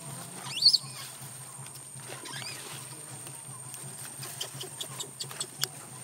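Newborn monkey crying: one loud, high-pitched rising-and-falling squeal about half a second in, a fainter one a couple of seconds later, then a few short chirps near the end.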